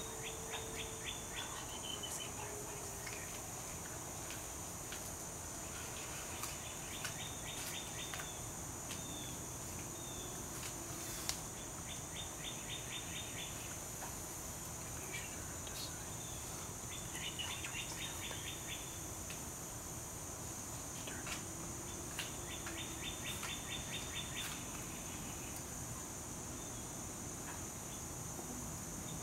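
Outdoor backyard ambience: a steady high insect drone, with a songbird's rapid trill of evenly spaced notes coming about every five seconds, five times.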